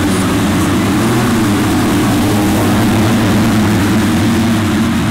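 Several motocross bikes' engines running at high revs together, their pitches wavering up and down as the riders work the throttle.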